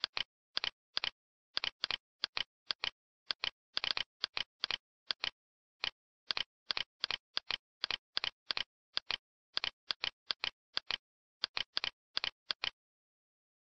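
Computer mouse clicking: many short sharp clicks, often in close pairs, at an irregular pace of about three a second, with dead silence between them.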